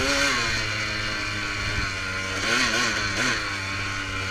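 Dirt bike engine running and being revved: a steady note that drops at the start, then quick rises and falls in pitch a couple of times in the second half as the throttle is blipped.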